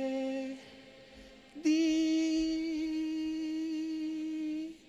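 A man's solo voice singing sustained vowel notes: one note breaks off about half a second in, then after a short pause a higher note is held steadily for about three seconds. These are the pitches assigned to each section of the audience to sing back.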